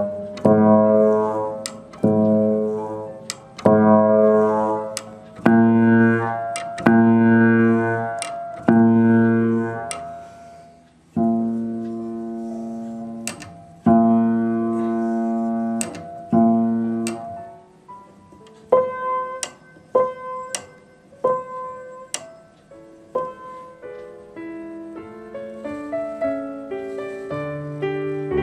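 1929 Ehrbar upright piano, its hammer felts moth-eaten, played by hand: the same chord struck again and again about once a second, each left to ring and fade, then a second chord repeated the same way. From about two-thirds in come quicker single notes and short runs.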